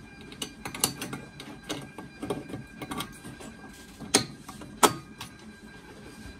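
Metal latch and bracket parts of a Zebra ZT410-series label printer clicking and knocking as they are handled, with two sharper clacks about four and five seconds in. A faint steady tone sits underneath.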